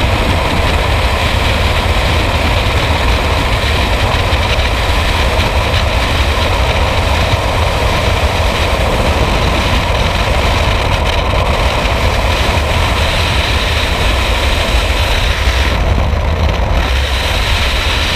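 Freefall wind rushing past the skydivers and buffeting the microphone: a loud, steady roar with a heavy low rumble.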